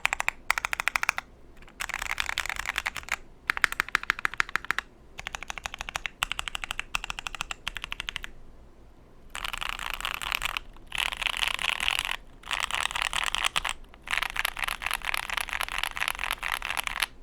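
Typing on a Bakeneko mechanical keyboard with lubed JWK Pewter linear switches, an FR4 half plate and ABS keycaps. Masking tape covers the underside of the PCB, which the uploader hears as making it deeper and thockier. Short bursts of keystrokes with brief pauses give way, about halfway through, to faster, near-continuous typing.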